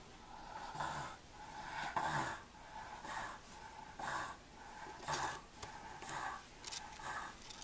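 American bulldog breathing heavily with snorting breaths, about one a second.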